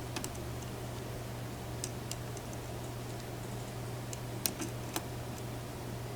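Irregular small metallic clicks of a lock pick and tension wrench working the pins inside a challenge lock, a few scattered over several seconds, over a steady low hum.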